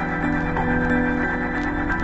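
Background music with a repeating pattern of sustained notes.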